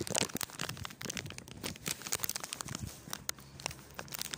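Plastic candy bag crinkling in hand close to the phone's microphone: dense, irregular crackles and rustles.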